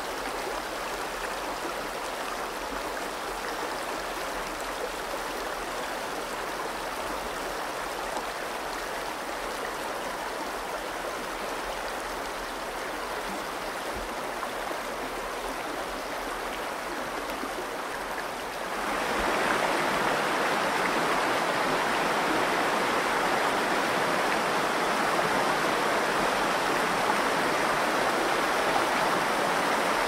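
The Virgin River flowing shallow over a cobble bed, a steady rushing of water. About two-thirds of the way through it jumps suddenly louder and brighter, then holds steady.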